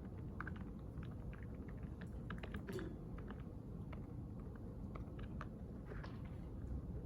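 Library reading-room ambience: a steady low hum with scattered light clicks of someone typing on a computer keyboard.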